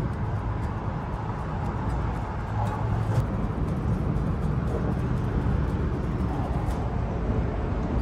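Steady low rumble of a moving cable-car gondola, heard from inside the cabin.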